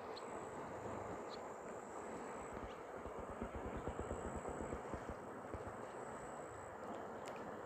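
Steady rushing noise of the flooded Amu Darya river and wind, with a run of low gusts buffeting the microphone in the middle.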